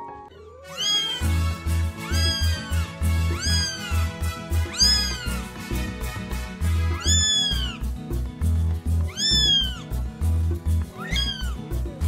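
A kitten meowing over and over, high calls that rise and fall, starting about a second in and coming every second or two, as it tries to get out of a mesh playpen. Background music with a pulsing bass plays underneath.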